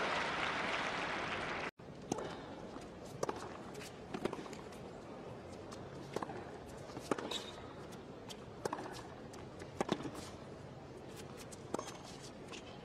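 Crowd murmur for the first couple of seconds, cut off suddenly. Then a tennis rally: sharp racket strikes on the ball about every second or so, over a hushed stadium.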